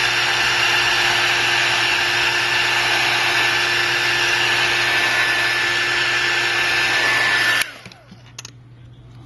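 Heat gun running, a steady blast of air with a fan whine, heating the glue under the iPad mini's glass to loosen it; it cuts off near the end.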